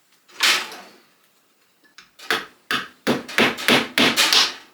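Hammer driving a panel pin into the softwood of a beehive floor: one blow near the start, then a quick run of light taps from about two seconds in, about three a second.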